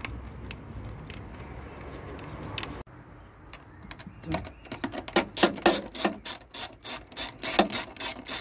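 Ratchet wrench clicking as it tightens the nut holding a heavy power cable's ring terminal on a fuse box stud. The clicking starts about four seconds in and comes in quick back-and-forth strokes, about three a second.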